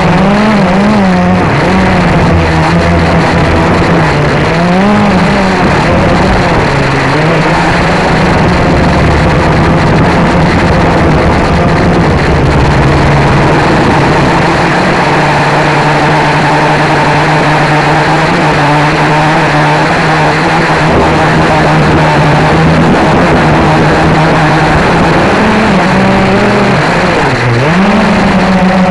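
Blade 350 QX quadcopter's brushless motors and propellers humming steadily, heard close up through the onboard camera. The pitch wavers briefly near the start and around four seconds in, and dips sharply then climbs back near the end as the throttle changes.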